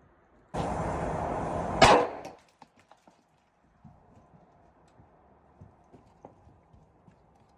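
Taginn airsoft grenade going off: a steady hiss for about a second, then one sharp loud bang, followed by a few scattered small ticks.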